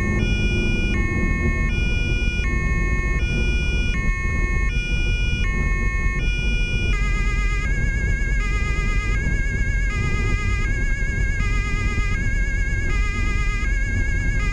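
German police two-tone siren (Martinhorn) heard from inside the police car, stepping back and forth between a high and a low note about every three-quarters of a second over the car's engine and tyre rumble. About seven seconds in the siren sound changes to a wavering, warbling tone laid over the stepping notes.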